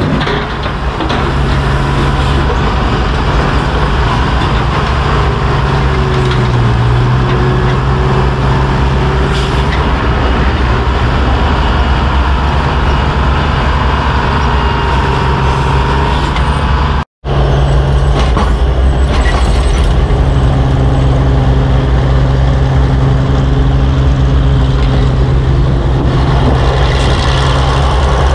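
Engines of vintage crawler-mounted cable power shovels running steadily under load while digging. First a Marion 33-M, then, after the sound cuts out for an instant a little past halfway, another old shovel.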